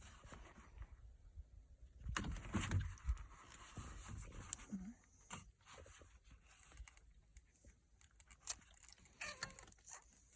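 Scattered scrapes, clicks and rustles of hands and plastic parts being worked as a steering-wheel airbag module is loosened for removal.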